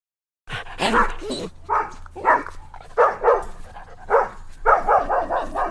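Dog barking repeatedly in short barks, starting about half a second in and coming quicker near the end.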